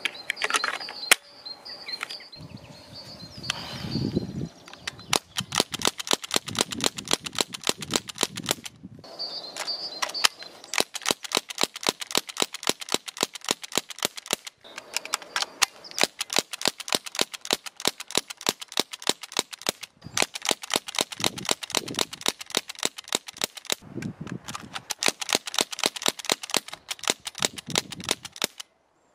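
Crosman 1077 CO2-powered repeater air rifle firing in rapid strings, several sharp cracks a second as fast as the trigger is pulled, with a few short breaks between strings.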